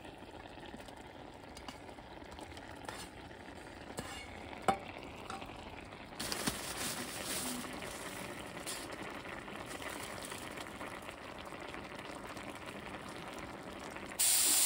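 Food sizzling in a hot pan on a camping stove, with a few light clinks; the sizzle grows louder about six seconds in. Near the end a much louder hiss starts suddenly.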